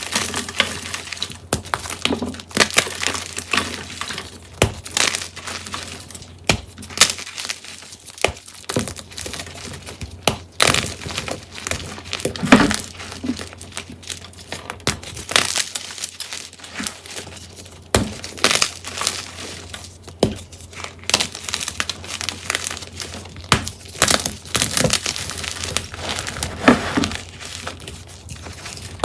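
Hard-set blocks of gym chalk being crushed, with many sharp, irregular cracks and crumbling crunches one after another. The chalk is hard but still gives way.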